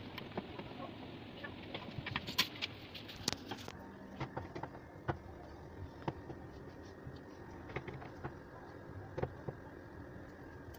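Irregular small clicks and ticks of a hand screwdriver working the screws of a concealed metal cabinet-door hinge, over a steady background hiss.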